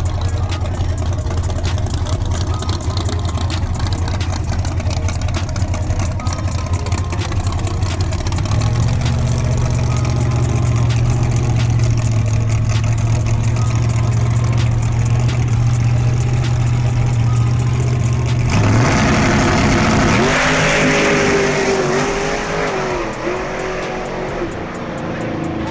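Drag race car engine held at a steady idle, stepping up to a higher held rpm about eight seconds in as it stages, then launching at full throttle about eighteen seconds in, its note climbing and dropping back through the gears as it pulls away down the track and fades.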